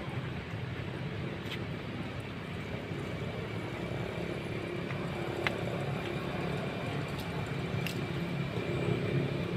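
Steady low outdoor background rumble, with a faint steady high tone and a few sharp clicks.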